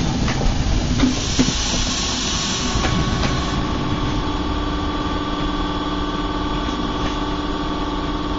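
Passenger train of couchette coaches rolling slowly past. The wheels click over rail joints in the first second or so and there is a brief hiss, then a steady hum with several held tones as the train moves away.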